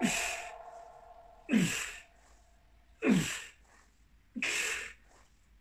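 A man's forceful, sigh-like exhalations, one with each back-extension repetition: four short breathy blasts about a second and a half apart, each dropping in pitch.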